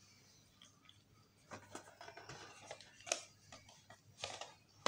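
Cardboard product boxes and a plastic downlight being handled and moved about: a series of short rustles, scrapes and light taps, the sharpest about three seconds in.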